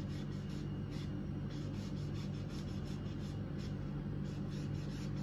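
Cleaver shaving the skin off a piece of winter melon: faint, irregular scraping strokes over a steady low hum.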